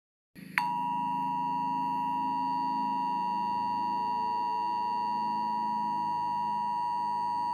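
Emergency Alert System attention signal: two steady tones sounded together just under 1 kHz, starting about half a second in and holding without a break.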